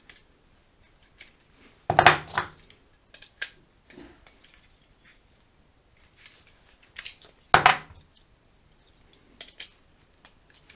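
Plastic plug-in relay being slotted into and pulled from plastic relay bases: clicks and rattles of plastic on plastic. There are two louder clatters, about two seconds in and again about seven and a half seconds in, with lighter clicks between.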